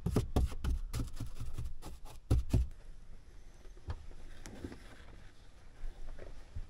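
Quick rhythmic rubbing strokes, about five a second, that stop about two and a half seconds in, followed by a few faint knocks and handling sounds.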